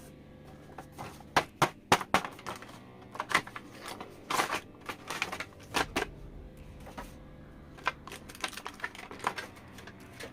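Plastic toy parts and packaging being handled: irregular sharp clicks and taps, some in quick clusters.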